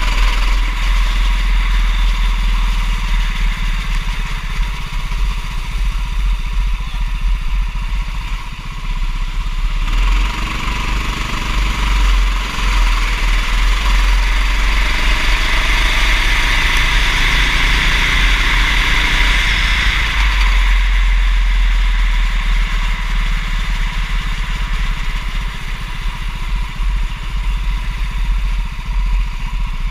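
Go-kart engine running on track, its pitch rising and falling with throttle changes.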